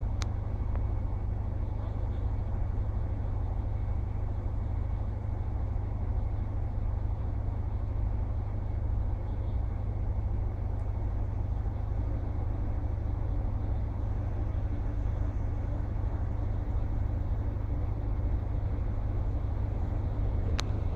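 Steady low rumble of railway-station background noise, with a faint steady hum joining about halfway.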